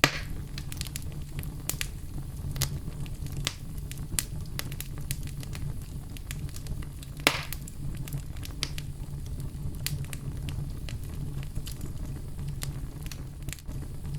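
Wood fire in a fireplace crackling, with a steady low rumble of the flames and sharp, irregular pops and snaps, the loudest right at the start and another about seven seconds in.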